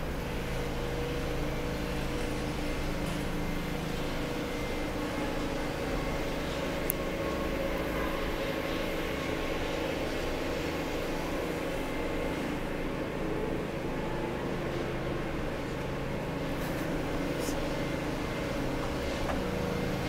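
Steady mechanical hum of a city street: a constant low drone with a faint steady tone over it, as from engines or ventilation machinery, with a single sharp click about seven seconds in.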